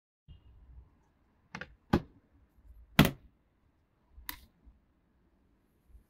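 Four sharp clicks at irregular intervals, the third the loudest, over a faint low rumble.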